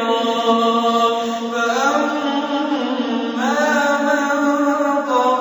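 A man's voice chanting Quranic recitation in the measured murattal style, in long held notes that glide up in pitch twice and step down near the end.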